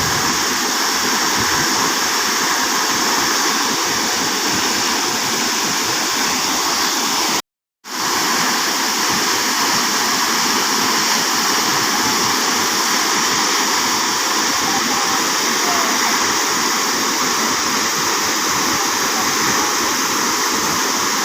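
Waterfall: a loud, steady rush of falling water. It cuts out completely for about half a second a little after seven seconds in, then comes straight back.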